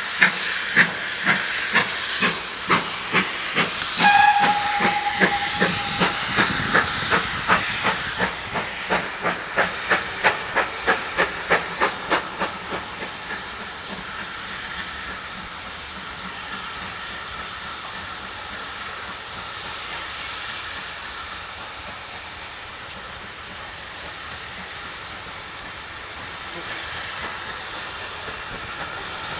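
GWR Large Prairie 2-6-2T steam tank locomotive getting under way: sharp exhaust beats quicken from about one to over two a second, with a short whistle blast about four seconds in. The beats then fade into a steady hiss and running noise as it draws away.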